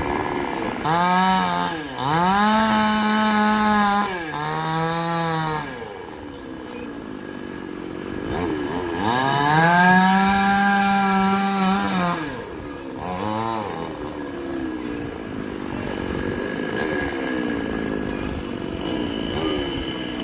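Chainsaw engine revving in about five bursts, each climbing quickly to a high steady pitch, holding and then dropping back, with lower running between. The longest burst, about three seconds, comes near the middle, and a short one follows a little later.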